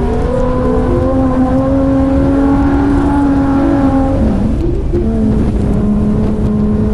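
An off-road 4x4's engine running hard under load at a fairly steady pitch. The pitch dips briefly about four seconds in, then holds again.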